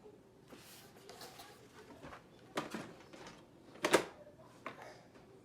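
Toys and packaging being handled: light rustling with a few sharp clicks and knocks, the loudest about four seconds in.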